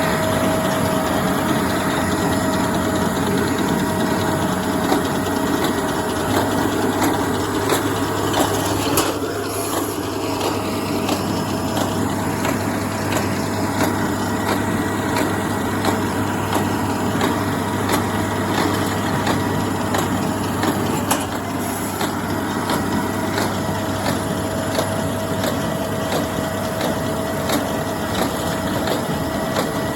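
International Harvester 1026 Hydro tractor running steadily under load, driving a New Holland 570 small square baler. The baler's plunger gives a regular knocking as it packs hay into bales.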